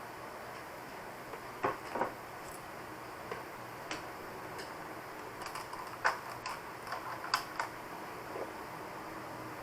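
Scattered light clicks and knocks of hard plastic being handled, about half a dozen over several seconds, as the drill's rebuilt battery pack is handled for charging.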